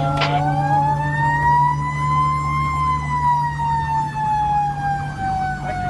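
Fire truck siren wailing, heard from inside the cab over the steady hum of the truck's engine. It makes one slow rise in pitch that peaks about halfway through, then slowly falls.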